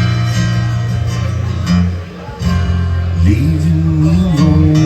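Live band music: singing with guitar accompaniment.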